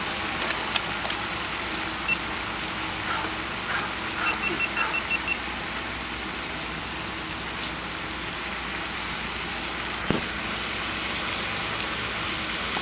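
Steady rushing background noise, with a few faint, short, high chirps about a third of the way in and a single sharp click near the end.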